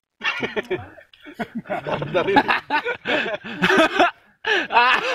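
People talking and laughing, with quick runs of chuckling.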